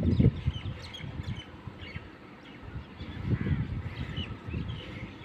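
Birds chirping with many short calls, over irregular low gusts of wind buffeting the phone microphone that are strongest at the start and again about three seconds in.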